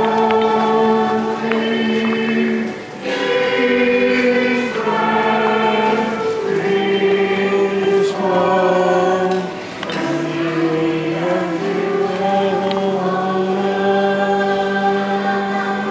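A choir singing a slow hymn in long held notes, with short breaks between phrases about three and ten seconds in.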